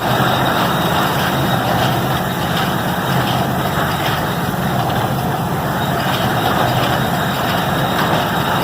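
Restored 1944 New Holland Model 75 hay baler running in real time, its engine and drive going steadily under the dense clatter of the working mechanism, while the needles pass through the hay and the knotter ties off a bale. The sound starts abruptly and holds steady.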